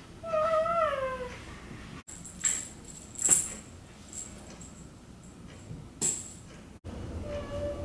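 A baby gives one high, falling wail. Then something metallic jingles sharply three times, a toy being shaken or knocked by the baby, and near the end there is a faint short baby sound.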